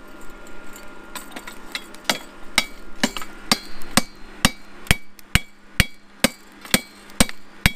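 Hand hammer forging a hot iron railroad spike. Blows land with a short metallic ring each, light and irregular at first, then steady at about two a second from around two seconds in.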